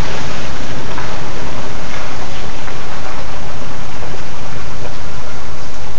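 Loud, steady hiss of rain, close enough to overload the recording, while an Infiniti sedan drives off on a wet road.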